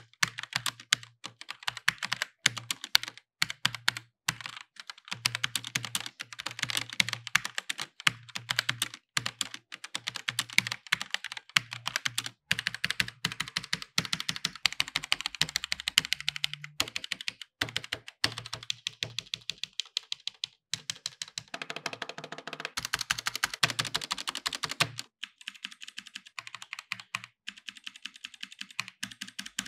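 Typing on an Altec Lansing ALGK8614 mechanical keyboard with red switches: a fast, dense run of key strikes. Red switches are linear, so there is no separate click on each press, and the reviewer finds them quieter than the blue-switch version.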